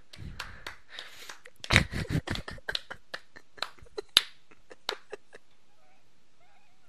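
Stifled laughter: an irregular run of short breathy bursts and clicks, strongest about two seconds in, dying away after about five seconds.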